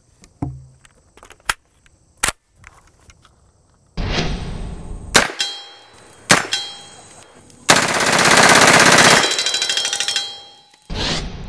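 A 10mm D54/10, an MP5/10-pattern submachine gun, firing full auto. After a few faint clicks, bursts and shots start about four seconds in, and a long rapid burst of about a second and a half comes near the two-thirds mark. Each burst is followed by ringing, likely from bullets striking steel targets.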